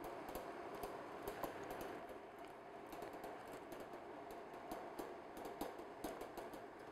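Faint, irregular crackling and crinkling of parchment paper being peeled slowly off the bottom of a baked chocolate sponge cake.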